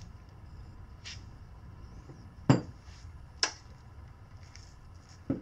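Two sharp metallic clinks about a second apart, with a fainter tick before them: steel hand tools (breaker bars and sockets) knocking against each other and the sprocket hardware, over a steady low hum.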